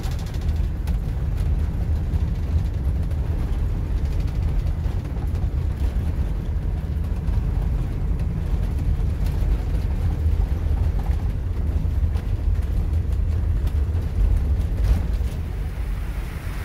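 Steady low rumble of a large tag-axle motorhome's engine and tyres, heard from inside the cab as it drives along a narrow lane.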